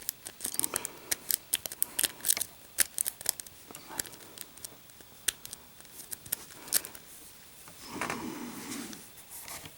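Lock picking a Master Lock No. 1 pin-tumbler padlock: a wave rake scraping and clicking over the pins while a tension tool holds the plug, giving sharp, irregular metal clicks several times a second. The clicks thin out about seven seconds in, followed by a short muffled rustle.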